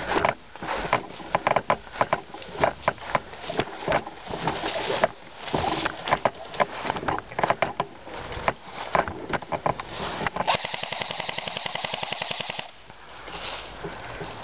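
Airsoft electric gun firing a sustained full-auto burst, a fast, even rattle lasting about two seconds that cuts off suddenly near the end. Before it come irregular sharp clicks and crackles.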